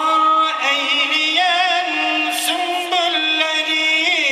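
Music in a Middle Eastern style: a wavering, ornamented melody over steadier held notes.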